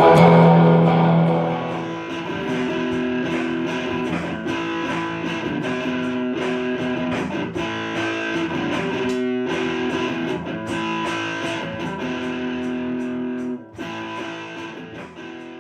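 Guitar music with electric guitar strumming and held notes; it drops suddenly near the end and fades out.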